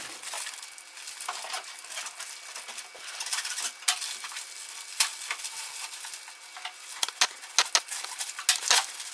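Gift-wrapping paper being crinkled and torn open by hand: an irregular crackling with sharp rips, the loudest of them in the second half.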